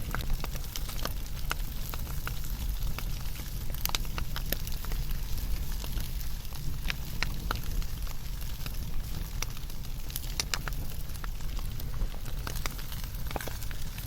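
Wood fire burning, crackling and popping with frequent irregular sharp snaps over a steady low rumble of flames.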